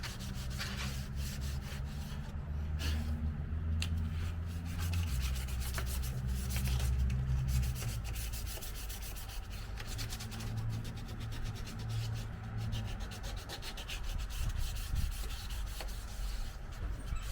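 Continuous sanding on a car's painted body panel, scuffing the edges and creases so the new paint will adhere. A low hum runs underneath and shifts in pitch.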